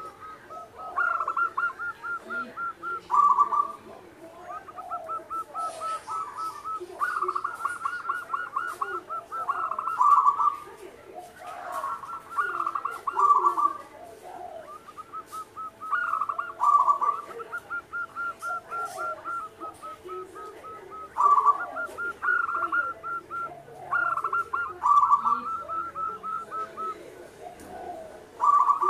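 Zebra dove (perkutut) cooing: phrases of quick, staccato repeated notes follow one another every few seconds, with fainter dove calls underneath.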